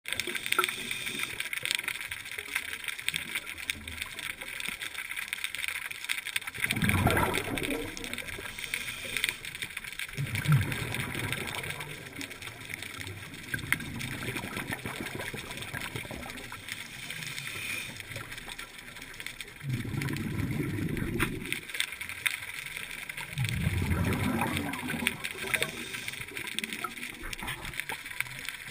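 A scuba diver breathing out through the regulator, with a low rumble of exhaled bubbles every few seconds, heard through an underwater camera housing. Faint crackling carries on throughout.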